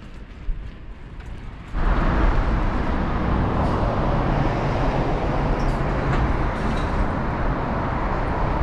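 Steady rushing road and wind noise of travel across a bridge, starting suddenly just under two seconds in. Before that, quieter outdoor ambience with a few light ticks.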